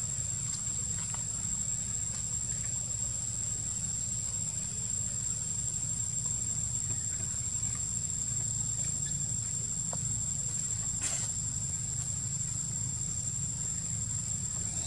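Insects in the trees keeping up a steady, high-pitched buzzing drone, over a low steady rumble. A brief sharp sound cuts in about three-quarters of the way through.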